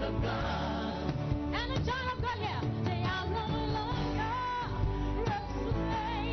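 Gospel praise and worship music: singing voices with vibrato over a band with steady bass and held keyboard-like chords.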